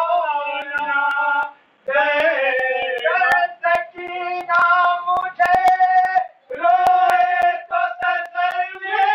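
A man singing a devotional lament recitation in long, drawn-out phrases with held notes and brief pauses between lines. Short sharp knocks are scattered through it.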